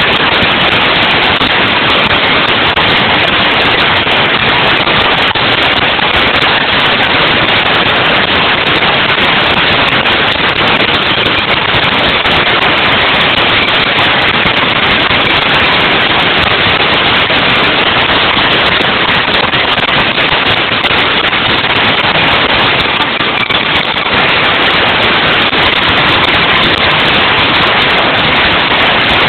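Stadium crowd of baseball fans cheering and shouting loudly without a break, celebrating a win.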